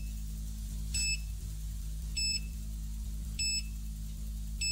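Delta Pulse 3S ground scanner beeping while the scan runs: short, high beeps at an even pace, about one every 1.2 seconds, over a low steady hum.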